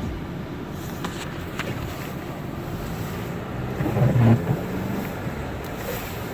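Steady road noise of a Honda Element driving on winter tires through about five inches of unplowed snow, heard from inside the cabin: a continuous rushing hiss of tyres and engine with a few faint clicks. A brief louder low hum rises about four seconds in.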